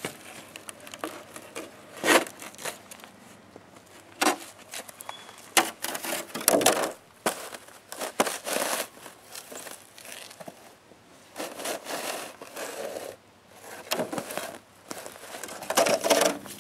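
Footsteps crunching on icy, crusted snow, in irregular bursts of crackling crunches.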